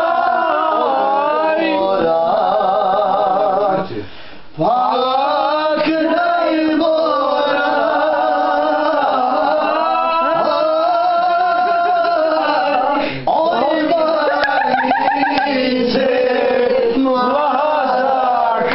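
A man singing loudly at full voice, with long held notes that waver. He breaks off briefly about four seconds in, then carries on.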